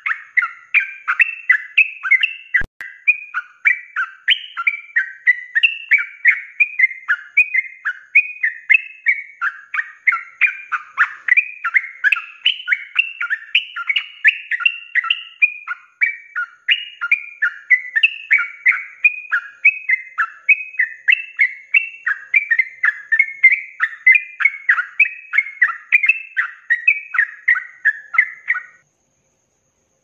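Yellow-vented bulbul (trucukan) singing its fast, rolling 'ropel' song: an unbroken run of short, quick repeated phrases, a few each second, that stops abruptly near the end.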